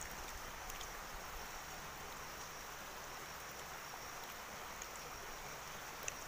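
Faint, steady outdoor background: an even hiss with a thin, high insect drone over it, and a couple of small clicks.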